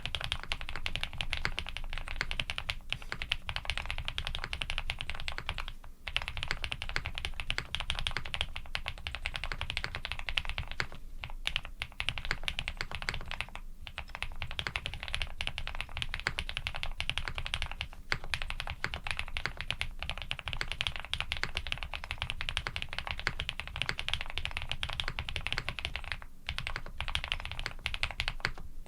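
Fast continuous typing on a custom mechanical keyboard with lubed Cherry-housing, cream-stem linear switches on a POM plate and GMK keycaps, dense key clacks with a few short pauses.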